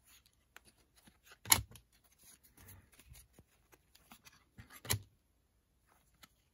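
Stiff chrome trading cards rustling and clicking against each other as they are flipped through one at a time, with two sharper snaps, one about a second and a half in and one near five seconds.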